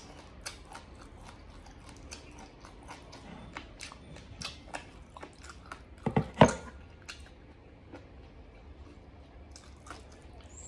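Close-miked chewing and biting of braised pig offal: a run of short, wet clicks and smacks from the mouth and fingers, with a louder cluster of smacks about six seconds in.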